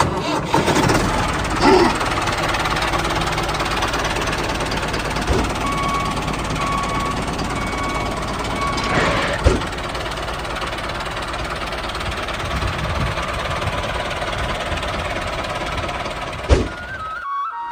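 Small motor of a miniature tractor-and-thresher model running steadily with a dense mechanical clatter, broken by a couple of sharp knocks.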